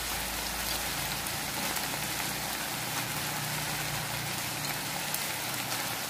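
Shrimp, pork and squid sizzling steadily in a hot wok, with scattered faint ticks and pops.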